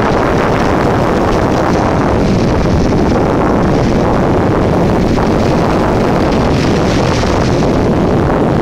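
Steady wind noise buffeting the microphone, mixed with the wash of surf breaking on a sandy shore.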